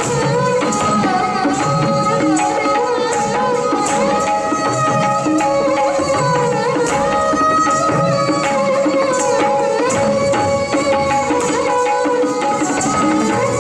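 Indian classical Kathak dance music: tabla playing a steady rhythmic cycle under a held, gliding melodic line.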